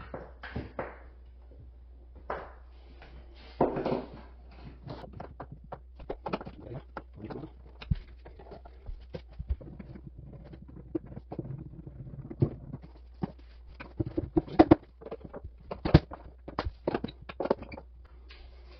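Irregular knocks, taps and clicks of pressed-board bookshelf panels and their metal cam-lock fittings being handled and turned during assembly, with a few louder knocks around the middle and later on.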